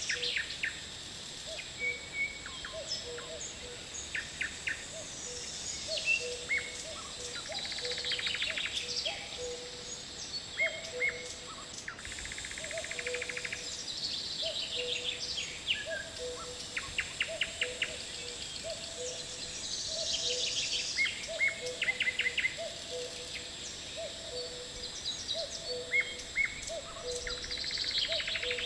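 Birds chirping and trilling over a low call repeated about twice a second and a steady high insect whine. The same stretch of sound starts over after a sharp cut about twelve seconds in, as a looped nature-ambience track does.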